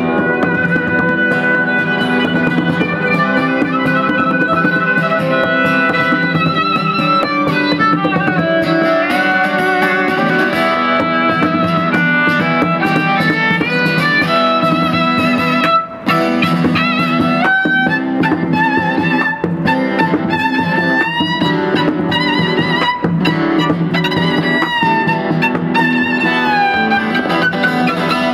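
A violin and an acoustic guitar play a fast, driving duet, with the guitar strummed hard under the violin's melody. The violin's lines are full of slides and held notes. Both instruments break off together for an instant about halfway through, then carry on.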